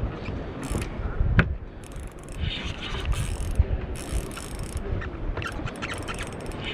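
Ultralight spinning reel working under load while a hooked fish is fought: the reel's gears and clicking ratchet run in repeated short spells over a low background rumble.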